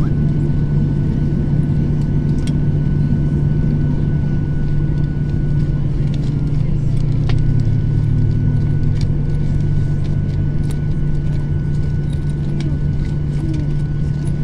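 Jet airliner's engines heard from inside the cabin while taxiing after landing: a steady low drone with a thin, steady high whine above it.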